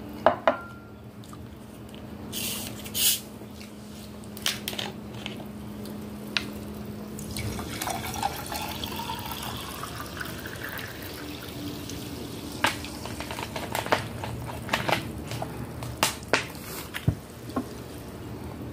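Sparkling water poured from a plastic bottle into a tall drinking glass, the pour's pitch rising as the glass fills about eight seconds in. Sharp clicks and knocks of the glass and bottle being handled come before and after the pour.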